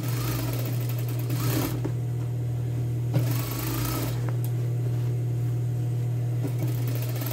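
Industrial lockstitch sewing machine stitching through denim in two short runs, the first about two seconds long and the second about a second long, over a steady low hum. The machine is sewing belt loops onto the waist of denim shorts.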